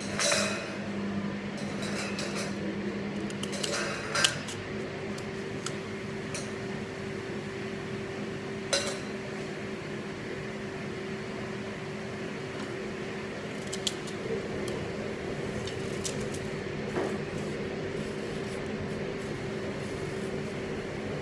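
Small kitchen knife cutting and slicing an apple by hand, with a handful of sharp clicks and clinks over a steady low hum. The hum's pitch steps up about four seconds in.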